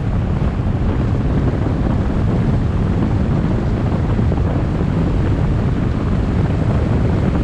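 A car driving at a steady speed: a constant low rumble of road and wind noise, with wind buffeting the microphone.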